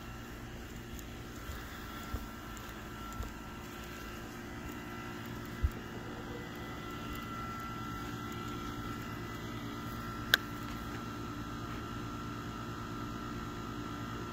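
Steady outdoor background hum with a few faint steady tones running through it. Several soft thumps come in the first few seconds, and there is one sharp click about ten seconds in.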